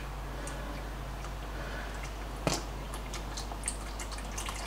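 Old engine oil dripping into a plastic drain pan as scattered small ticks, with one louder knock about two and a half seconds in.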